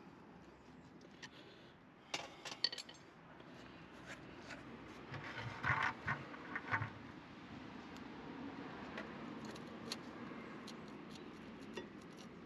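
Quiet metallic clinks, taps and scrapes of brake parts and tools being handled, with a small clatter about two seconds in and a few louder knocks and rustles around six seconds.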